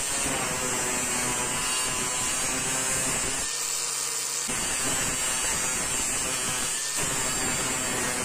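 Cordless brushless angle grinder with a flap disc running under load, grinding a wooden block held against the spinning disc and then steel near the end. The steady motor whine and grinding noise ease off briefly a few seconds in and again about seven seconds in.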